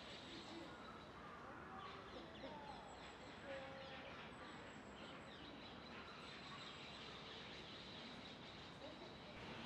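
Faint outdoor background noise with a few faint short bird chirps and a thin steady high tone through the second half.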